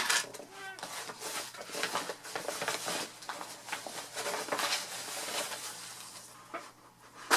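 Rustling and crackling of fabric and plastic-wrapped items being rummaged through and pulled out of a fabric tote bag, in irregular scratchy bursts.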